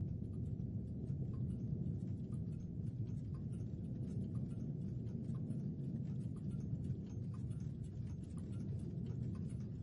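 Low, steady rumbling drone with faint ticks about twice a second.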